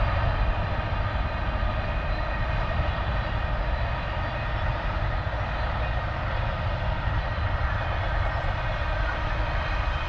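Container freight train running past in the distance: a steady, unbroken rumble and drone of the wagons on the track.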